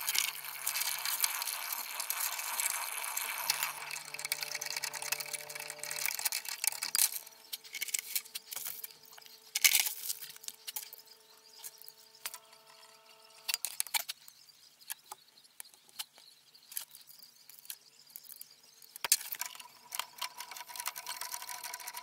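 Ratchet wrench clicking rapidly for the first several seconds, then scattered clicks and knocks of tools on metal pipe fittings.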